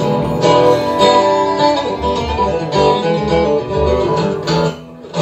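Instrumental stretch of a theme song, led by plucked acoustic guitar in a country style. It dips in loudness just before the end.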